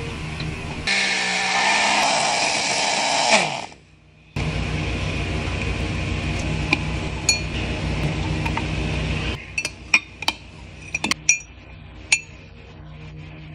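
A small motor whirs loudly for about two and a half seconds and then spins down. Later, a metal spoon clinks and taps repeatedly against a glass mug while mashing mango, over background music.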